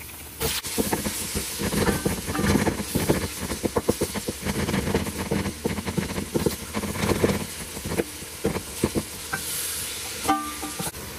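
Ground beef and fried onions sizzling in hot oil in a metal pot, with a wooden spoon scraping and stirring them in many quick strokes. The sizzle starts about half a second in.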